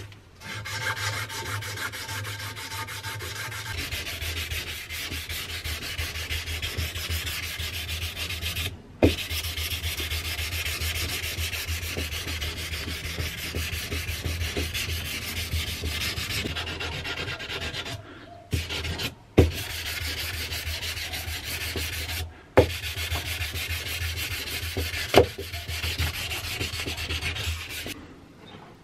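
Sandpaper rubbed by hand back and forth over a wooden knife handle: a scratchy rasping in quick, even strokes. It breaks off briefly a few times, and there are several sharp clicks.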